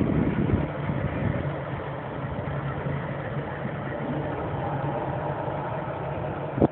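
Steady low engine hum, like a motor idling, with wind buffeting the microphone at the start and a short thump near the end.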